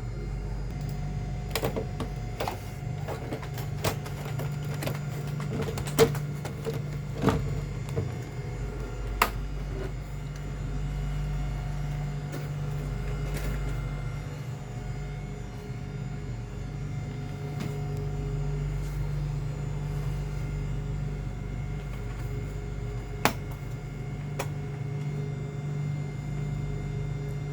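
Scattered sharp clicks and knocks, several in the first nine seconds and one more near the end, over a steady low hum.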